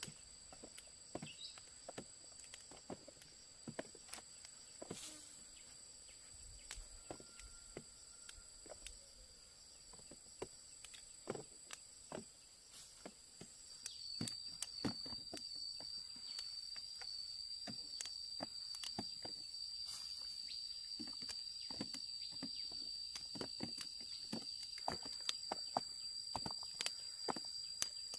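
Insects trilling steadily in high continuous tones, with a second, louder trill joining about halfway through. Under them are many scattered small clicks and rustles.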